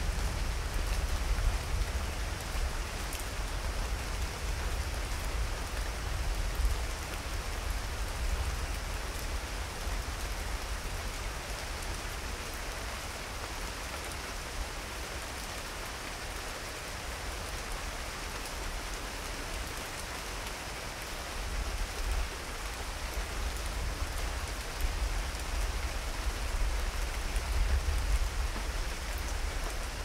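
Steady rain falling during a thunderstorm. A low rumble underneath swells near the start and again over the last third.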